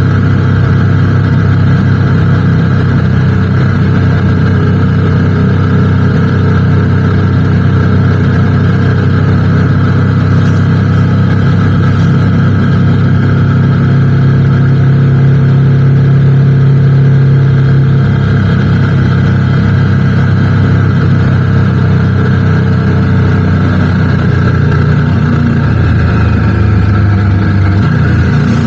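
Motorcycle engine running steadily under way. Its note holds even for most of the stretch, then drops in pitch over the last few seconds as it slows.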